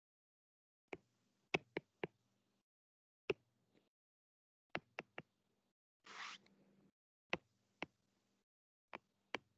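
Stylus tapping and clicking on a tablet's glass screen during handwriting: about a dozen sharp, irregular taps, with a short scrape about six seconds in.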